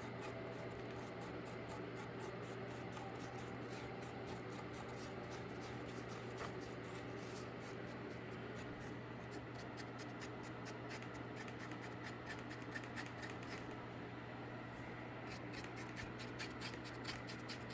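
A dry paintbrush scratching in quick, repeated strokes over cardboard, coming faster near the end, with a steady low hum underneath.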